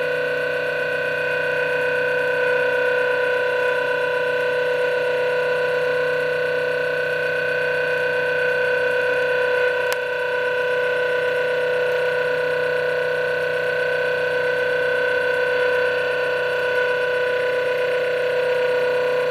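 Stepper motors of a CNC XY stage turning its lead screws at a very slow feed: a steady electronic whine of several held pitches. A small click about ten seconds in.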